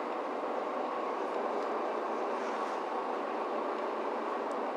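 Steady engine and running noise of a Mercedes-Benz Citaro C2 G articulated city bus, heard from inside the passenger cabin, with a couple of faint ticks near the end.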